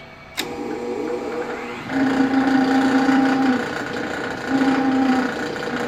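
Click of a Furnas R44 barrel switch thrown into forward, then the vintage Sheldon lathe's motor, fed from a static phase converter, spinning up and running with the spindle and chuck turning. It settles into a steady mechanical hum, with a rising pitch over the first second or so and a lower hum that swells twice.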